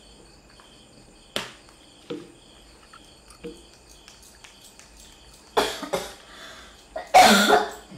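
One sharp snap about a second and a half in and a couple of faint taps, then two short breathy bursts, cough-like, near the end; the second is the loudest.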